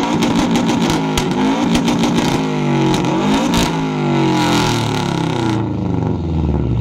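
Subaru Legacy sedan's engine revved hard several times through its exhaust, the pitch climbing and falling with each rev; a little over five seconds in the revving stops and the engine drops back.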